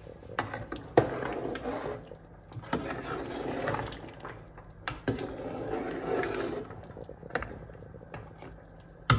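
A long metal ladle stirring a steaming pot of lamb curry gravy: the liquid swishes and sloshes in several waves, with a few sharp clicks of the ladle against the pot.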